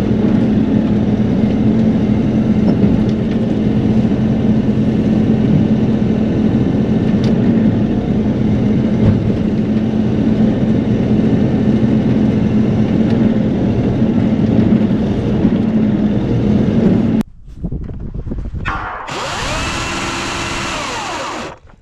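Bobcat E42 mini excavator's diesel engine running steadily under hydraulic work, heard from inside the cab. It cuts off suddenly about 17 seconds in, and near the end a chainsaw revs for about two and a half seconds.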